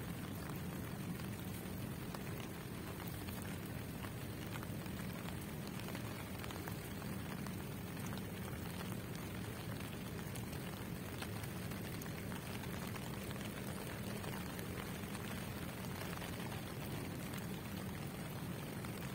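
Steady rain falling on wet pavement: an even hiss with faint scattered drop ticks.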